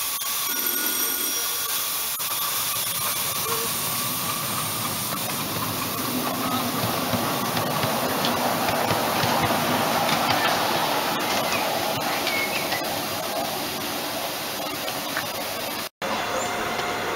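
Miniature live-steam locomotive hauling a ride-on passenger train: steady hiss of steam with the train's running noise. A split-second dropout to silence near the end.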